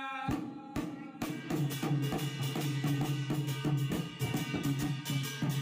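A Garhwali dhol, a laced barrel drum, beaten with a stick in a fast, driving jagar rhythm that starts about a third of a second in, with a steady ringing tone underneath.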